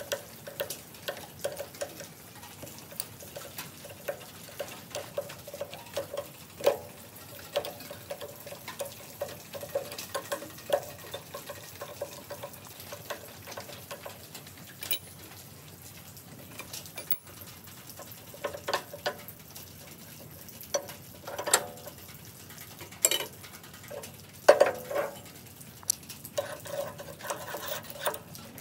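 Irregular metallic clicking, scraping and light knocking of hand work on metal parts, with a faint ringing note, and a few louder knocks in the second half.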